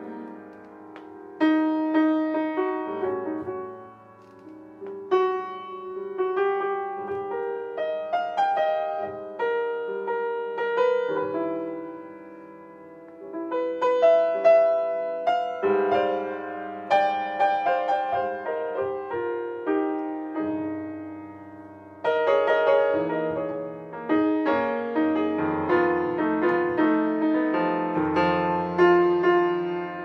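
Solo jazz piano on a Yamaha grand: a slow ballad passage of chords and melody lines, played in phrases with short lulls where the notes are left to ring and fade.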